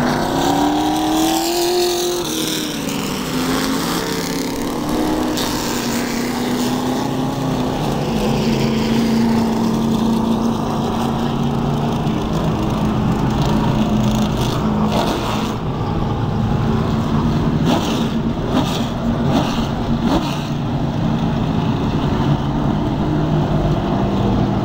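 Stock car engines of a pack of short-track race cars going past, their pitch rising and falling over the first few seconds, then settling into a steady drone from the field running around the oval. A few brief sharp noises cut through in the second half.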